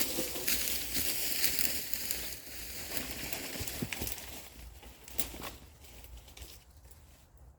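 Dry leaves and brush rustling and crackling, with many small snaps, dying away after about five seconds.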